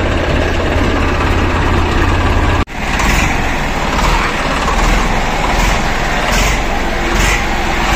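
Swaraj 855 tractor's three-cylinder diesel engine running with a steady low drone. The sound breaks off sharply about two and a half seconds in and goes on as a steady engine drone with a few short hisses.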